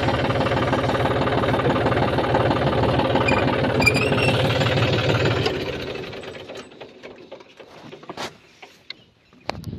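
John Deere tractor's diesel engine running with a steady, rapid chatter, then winding down and falling quiet about six seconds in. A few sharp knocks follow.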